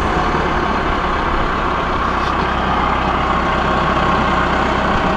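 LS MT5-73 tractor's diesel engine idling steadily just after start-up following an oil change, running so the new oil filter fills with oil.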